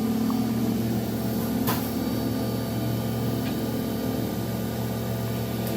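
Haas VF-2SS CNC vertical machining center running with a steady mechanical hum, with a sharp click about a second and a half in and a fainter one midway.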